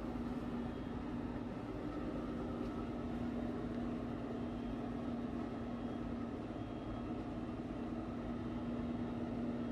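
Steady ventilation hum with one constant low tone, typical of a bathroom exhaust fan running.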